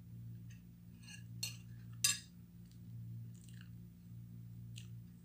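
Spoon and fingers clinking lightly against a plate during a meal, with two sharper clicks about one and a half and two seconds in, faint chewing, and a steady low hum underneath.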